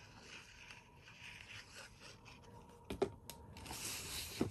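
Cardstock being handled: faint rustling, a couple of light taps about three seconds in, then a short sliding scrape of card on card and a sharp tap near the end.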